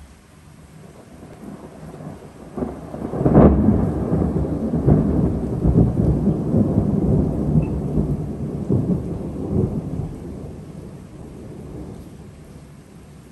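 Thunder rolling over steady rain. It builds from about two seconds in, cracks loudest at about three and a half seconds, rumbles on for several seconds and slowly dies away.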